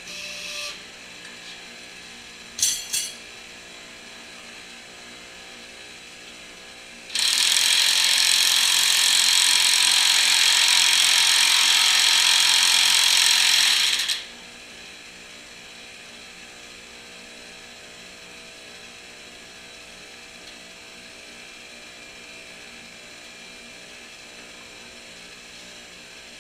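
Electric impact gun running for about seven seconds, hammering as it twists a forge-hot Damascus bar clamped in a hydraulic press. Before it come a couple of short sharp knocks, over a steady background hum.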